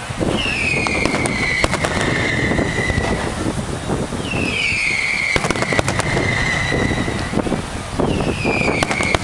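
Fireworks: three whistling shells rise, each giving a long whistle that falls in pitch, about four seconds apart. Sharp bangs and crackles sound between the whistles.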